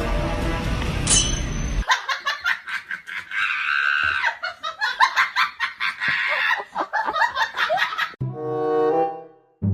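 Music that breaks off about two seconds in, followed by about six seconds of people laughing in quick, choppy bursts. Music with low sustained notes comes in near the end.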